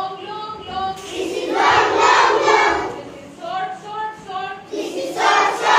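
A class of young children chanting loudly together, answering a single singing voice in call and response: the lone voice, then the group, twice over.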